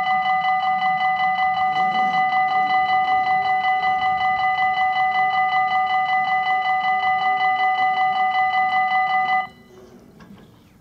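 Belgian level crossing's electronic warning bell ringing in a fast, steady pulse of several tones. It cuts off suddenly about nine and a half seconds in, as the barriers come fully down. Under it, from about two seconds in, is the faint hum of the barrier motors lowering the booms.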